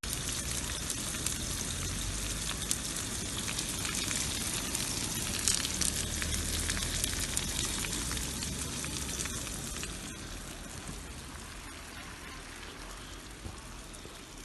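Slices of sucuk, Turkish spiced sausage, sizzling and crackling in hot oil in a frying pan, with dense fine popping. The sizzle eases off somewhat about ten seconds in.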